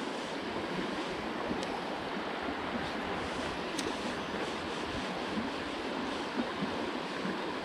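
Shallow river flowing over stones: a steady rush of moving water.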